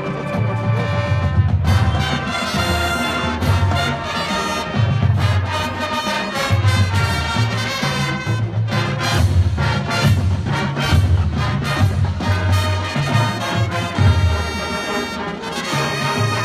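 Marching band playing: a full brass section with drumline, the low brass sounding a moving bass line under the horns, punctuated by sharp percussion hits.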